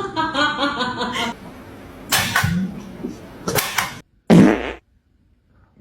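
Three short fart noises, the last and loudest a little over four seconds in, after a moment of voice at the start.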